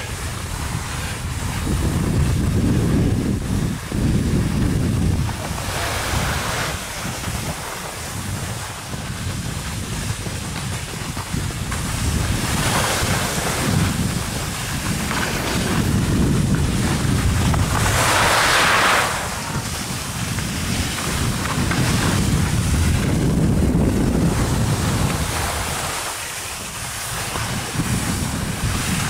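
Wind buffeting the microphone of a moving skier, with the hiss of skis sliding over slushy spring snow swelling now and then, loudest a little past halfway.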